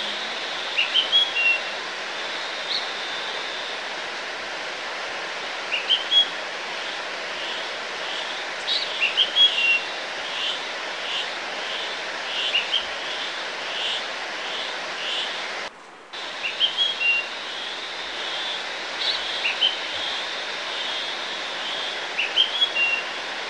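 Small birds chirping in short, quickly repeated phrases over a steady hiss, a birdsong sound effect for the shadow-play bird. The sound drops out briefly about sixteen seconds in.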